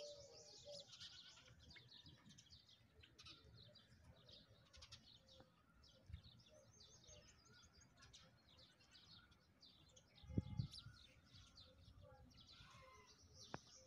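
Quiet outdoor background with faint, rapid chirping of small birds, and one low thud about ten seconds in.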